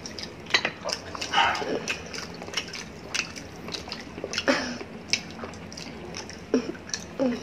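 Eating sounds: hands tearing pieces off a whole spit-roasted chicken, with chewing and many short wet smacking clicks, and a few brief mouth sounds.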